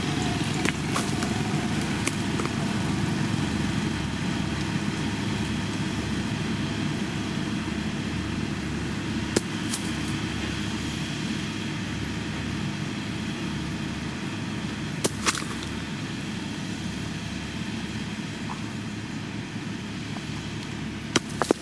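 Diesel engine of heavy road-building machinery, a motor grader or road roller, running steadily and slowly easing off, with a few sharp clicks or knocks.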